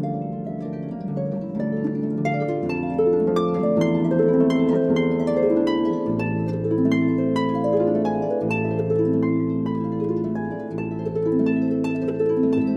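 Background music of plucked notes, harp-like, over held bass notes that change every few seconds.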